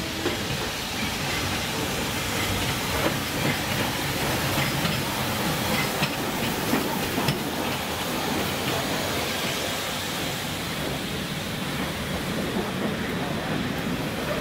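A steam locomotive and its coaches running past at close range, with wheels clattering and knocking on the rails and steam hissing.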